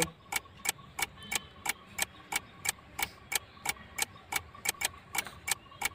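Clock ticking, a steady run of sharp ticks about three a second.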